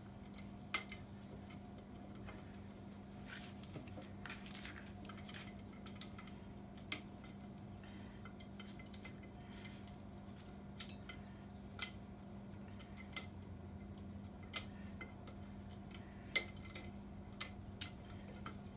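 Scattered sharp metallic clicks and clinks of hand tools, a ratchet among them, as a stubborn part is worked slowly off the fan drive of a 7.3 IDI diesel engine. A steady low hum runs underneath.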